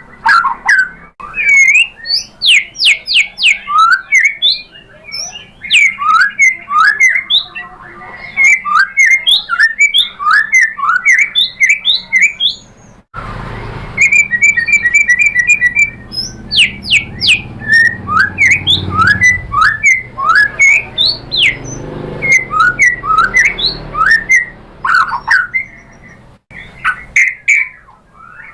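White-rumped shama singing: rapid whistled phrases of quick rising and falling notes, with a short break about halfway through.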